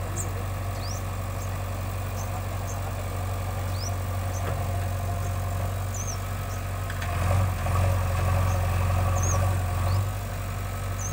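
JCB backhoe loader's diesel engine running steadily, growing louder for about three seconds from about seven seconds in before settling back. Scattered short high chirps sound over it.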